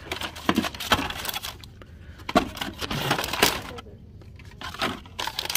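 Blister-packed toy cars being rummaged through by hand in a box: plastic packaging clattering and rustling in an irregular run of clicks and knocks.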